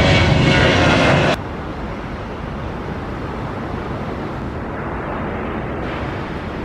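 Jet engines of a Boeing 737 at takeoff thrust as it climbs out, loud and steady, cutting off abruptly about a second and a half in. Then quieter, steady jet-engine noise from an Airbus A330 on the runway.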